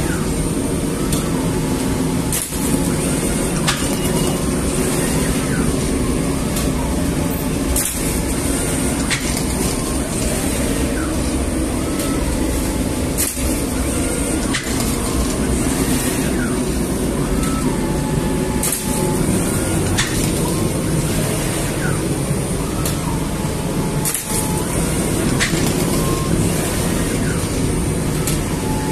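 An automated flatbread oven and dough-sheeting machine running: a steady mechanical hum and burner rush, with a sharp click every second or so from the machinery.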